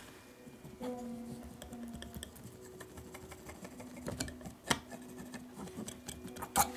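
Palette knife tapping and scraping oil paint onto a canvas board: a run of small clicks and taps, the sharpest near the end, over faint soft background music.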